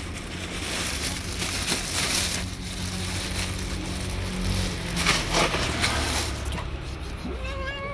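A tabby cat crunching dry kibble over a steady low rumble of street traffic. Near the end a cat starts a long meow.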